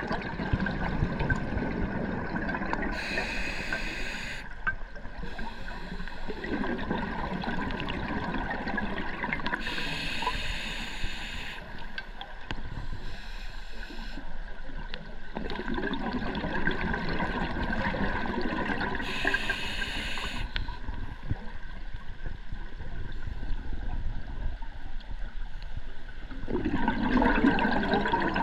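Water sloshing and gurgling, with five short hissing bursts of about a second and a half each.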